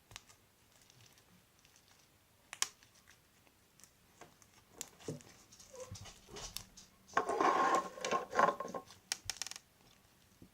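Sticky crunchy slime full of foam beads being kneaded and mixed by hand, with scattered clicks and pops, then a louder stretch of wet crackling and squishing about seven seconds in.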